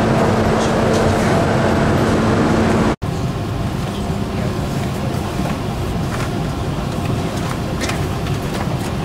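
Steady drone of the airport apron beside a parked airliner, with a held low hum; it cuts off abruptly about three seconds in. Then the steady ventilation noise of an airliner cabin during boarding, with faint passenger chatter and small clicks.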